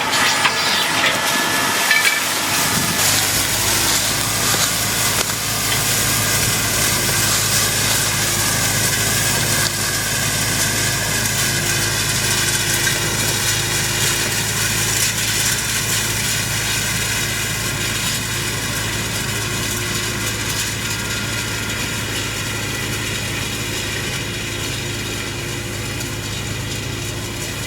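Tractor engine running at a steady speed, with an even hiss of machinery noise over it.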